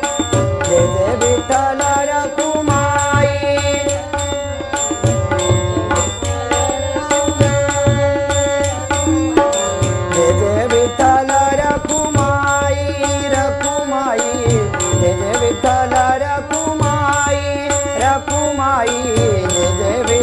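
Devotional bhajan music with no lyrics sung: a harmonium plays the melody over a steady held note, while a tabla keeps a lively rhythm and small hand cymbals ring in time.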